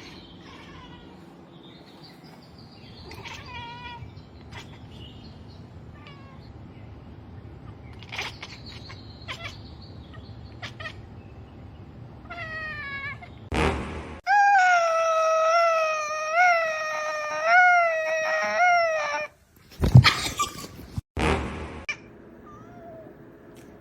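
Domestic cats making odd, broken-sounding meows: several short chirping calls, then one long, loud, warbling yowl of about five seconds that wavers up and down in pitch. A few sharp bumps follow near the end.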